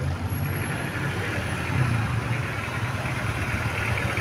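Bus engine running with road noise: a steady low hum under a haze of traffic sound that grows a little louder toward the end.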